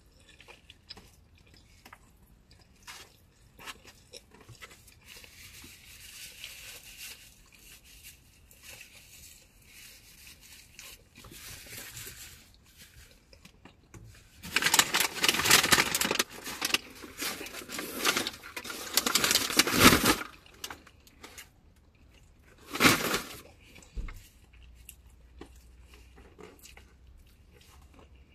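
A person eating takeout noodles: faint chewing and small utensil clicks, broken about halfway through by some six seconds of loud scraping and rustling, and a shorter loud burst a few seconds later.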